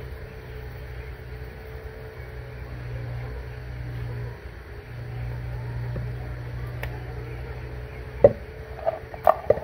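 A steady low hum with a brief break about four seconds in. Near the end come four sharp knocks of kitchenware being handled while fish is being marinated.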